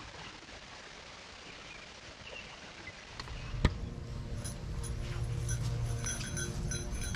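Faint steady hiss, then a sharp click a little over three seconds in, after which small bear bells jingle on and off over a low rumble of wind or handling on the microphone.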